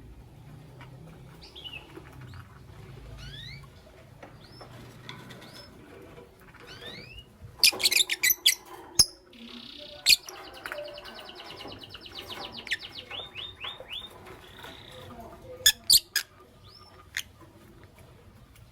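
Lovebirds chirping: short upward-sliding chirps, then bursts of loud, sharp shrieks about eight seconds in and again near the end, with a fast chattering trill between them.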